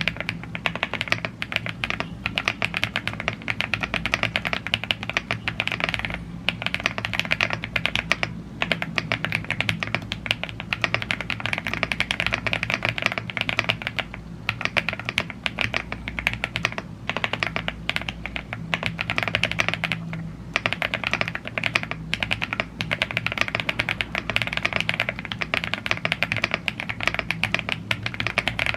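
Fast, continuous typing on a YUNZII AL75 gasket-mounted aluminium mechanical keyboard with Blue Grey tactile switches and double-shot PBT Cherry-profile keycaps. A few brief pauses break the stream of keystrokes.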